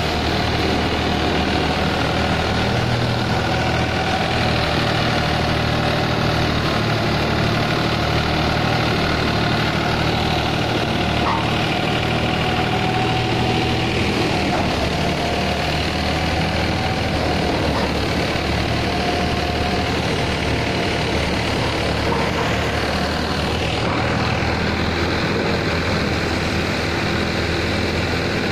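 New Holland tractor engine running steadily at working speed, driving a PTO-powered wheat thresher, with the thresher's drum and fan adding a dense, steady whir.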